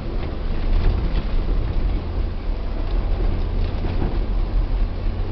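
A car driving over a snowy, rutted forest track, heard from inside the cabin: a steady low engine and road rumble with occasional light knocks and rattles.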